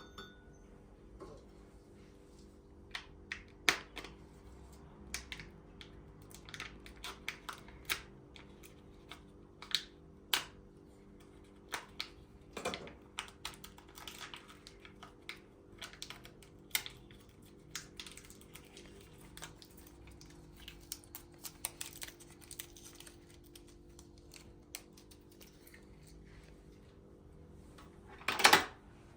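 Irregular light clicks and taps, a few seconds apart to several a second, over a faint steady hum, with a louder clatter near the end.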